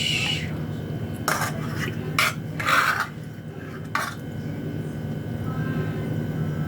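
Eating sounds: four short scrapes and clicks of cutlery on a plate while a mouthful of sardines and rice is taken, over a steady low hum.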